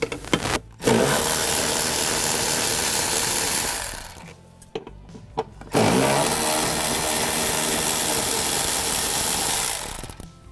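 Cordless electric ratchet running in two long spells of about three and four seconds, spinning bolts out of a plastic airbox through a 10 mm socket on an extension, with a few small clicks in the pause between.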